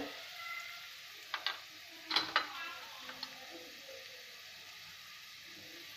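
Sliced onions frying in oil in a pan, a faint steady sizzle. There are a few short clicks and then a louder couple of clinks about two seconds in, from a spoon as turmeric powder is added.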